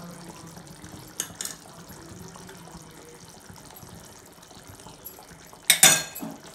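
Fish curry simmering and bubbling in a nonstick kadai as a metal spoon stirs the gravy, over a steady low hum. Near the end the spoon gives a short, loud clatter against the pan.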